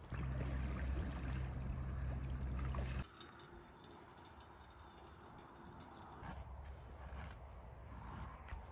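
A steady low rumble that cuts off about three seconds in. Then a gravity water filter drips faintly into a steel mug. Near the end come light knocks of a knife being worked into a small log.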